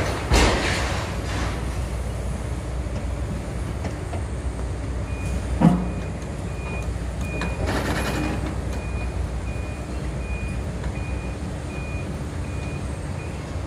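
Long-reach demolition excavators at work: a steady diesel engine hum, with crashes of debris as the crusher jaws break up the building about half a second in, near six seconds and again around eight seconds. From about five seconds in, a high back-up alarm beeps about twice a second.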